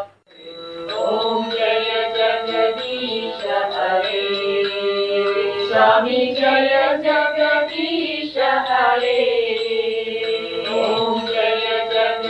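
Devotional singing in a chanting style: a voice holding long notes that slide up and down. The sound cuts out for a moment at the start, then comes back.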